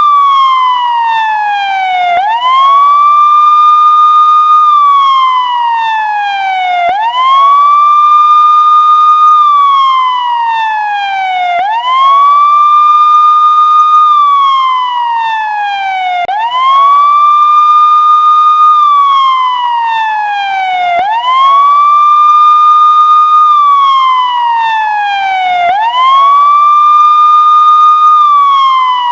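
An electronic emergency-vehicle siren in a slow wail, repeating about every five seconds. The pitch rises quickly, holds high for about two seconds, then slides slowly down before jumping up again.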